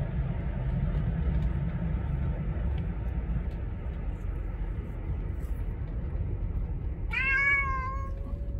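Domestic cat meowing once near the end, a long meow that rises and then holds steady. Under it runs the steady low rumble of a car's cabin on the move.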